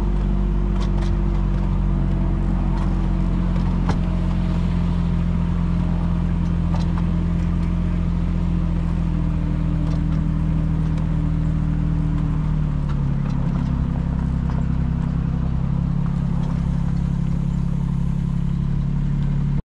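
Engine of a miniature diesel-type locomotive running steadily, its note gradually falling and dropping a step lower about two-thirds of the way through, with scattered light clicks.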